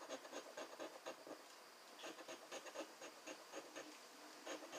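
Scratch-off lottery ticket being scratched with a round scratcher disc: faint, quick rasping strokes in short runs, with a brief lull a little before halfway.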